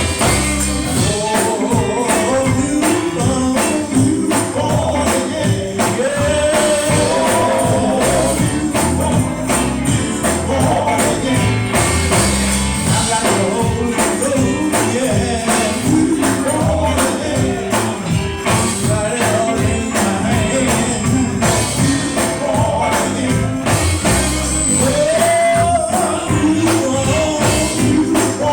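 Live gospel music: a band playing with a tambourine keeping a steady beat, heavy bass and drums, and singers' voices over it.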